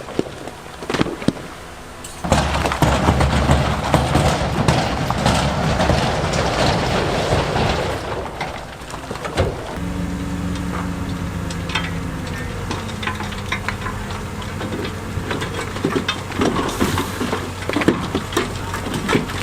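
Diesel engines of heavy earthmoving machinery running, with scattered knocks and clatter of stone. A louder, rushing noise comes in about two seconds in and lasts some six seconds, then gives way to a steadier engine hum.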